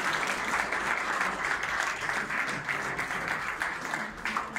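Audience applauding, a steady patter of many hands clapping that thins out near the end.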